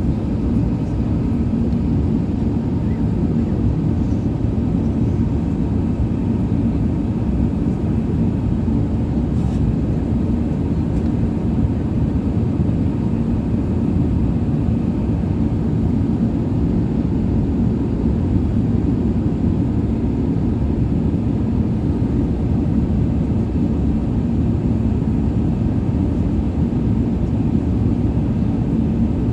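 Steady low rumble of jet engine and airflow noise heard inside the passenger cabin of an Airbus A380-800, with a faint steady hum under it.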